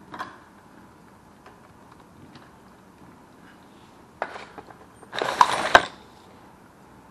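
Cordless DeWalt impact driver with a long bit run in short bursts to drive a screw into a metal electrical box: a brief burst just after four seconds, then a louder rattling burst of under a second about five seconds in, with small handling clicks around them.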